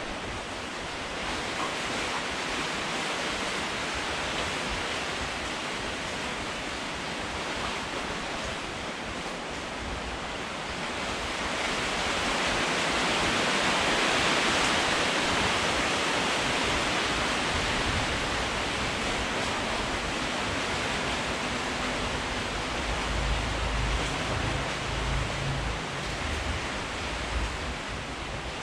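Wind rushing steadily through palm fronds, swelling in a gust around the middle. A low rumble comes in near the end.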